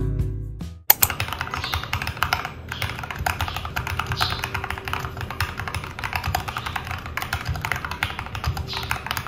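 Fast continuous typing on a mechanical keyboard with brown (tactile) switches, a steady patter of key clacks starting about a second in, just after background music fades out.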